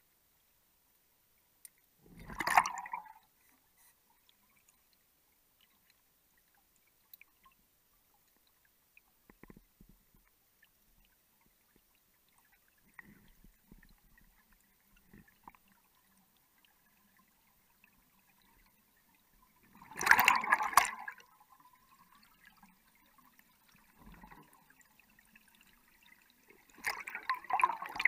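Underwater gas bubbles venting in three short gurgling bursts, about two seconds in, about twenty seconds in (the loudest), and near the end, from a diver. Between the bursts there are only faint ticks and low murmurs.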